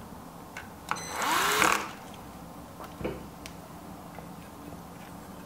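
Electric screwdriver running in one short burst of under a second, about a second in, driving a screw at the load cell housing; its pitch rises and then falls, and the driver's torque is set to the lowest setting. A few light clicks of parts and tool being handled.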